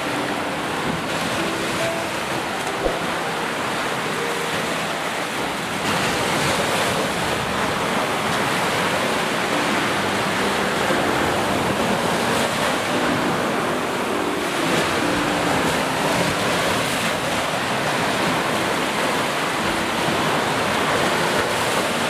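Ocean surf washing up a sandy beach: a steady rush of breaking waves and foam, a little louder from about six seconds in.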